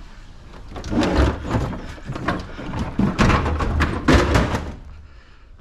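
Scrap appliance parts being handled and knocked about during dismantling: a run of thuds and clanks, busiest about a second in and again from about three to four and a half seconds in.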